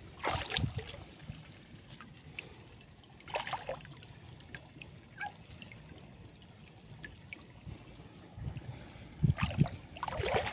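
Shallow river water trickling and splashing as a fine-mesh shrimp-fry net is handled in it, with a few short louder splashes about half a second in, a few seconds in and near the end.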